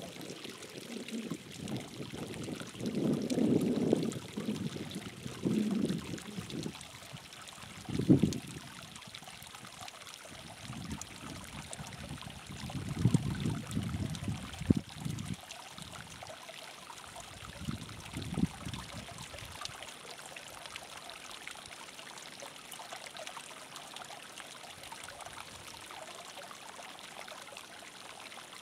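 Hot spring water trickling steadily. Irregular low rushing swells come and go through the first two-thirds, then die away, leaving only the faint steady trickle.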